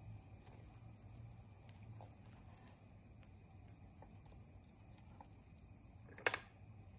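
Wooden chopsticks picking and scraping at sticky melted rice cake on a waffle maker's nonstick plate: faint soft scrapes and small ticks over a low steady hum, with one sharp click about six seconds in.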